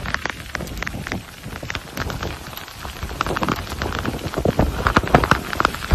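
Heavy storm rain pelting down: a dense, irregular patter of hard drops striking a surface, growing heavier near the end.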